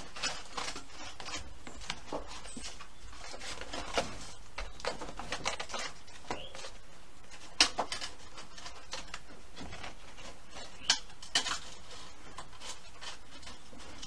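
A pan clinking and scraping against the racks inside a Masterbuilt electric smoker as it is slid under a meatloaf, in irregular light knocks. A sharper clank comes about halfway through and two more a few seconds later.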